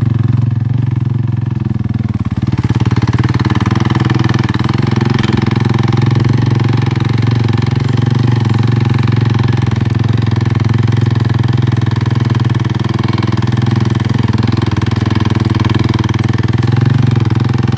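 Small motorcycle engine running steadily under way on a rough, rocky dirt track. A hissing, rattling noise from the ride grows about two and a half seconds in.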